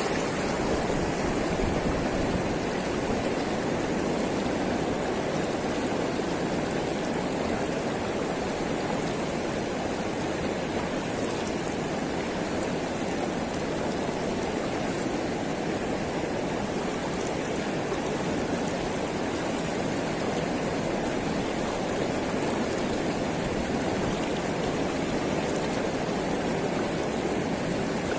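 Fast river water rushing steadily over a weir and around a person wading in the current, a constant unbroken wash.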